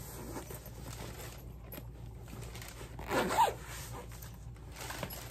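Zipper on the fabric bottom compartment of a Beis Convertible Mini Weekender being worked, with the nylon fabric rustling and scraping as the bag is handled; the loudest pull comes about three seconds in.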